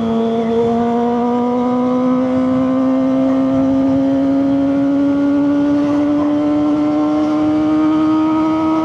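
Kawasaki ZX-25RR's 250 cc inline-four engine through a LeoVince GP Corsa exhaust, pulling under light, steady acceleration, its pitch rising slowly and smoothly throughout.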